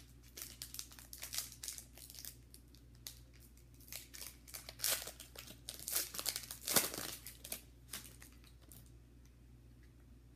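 A football card pack's foil wrapper being torn open and crumpled by hand: a run of sharp crinkles, loudest about five and seven seconds in, dying away near the end.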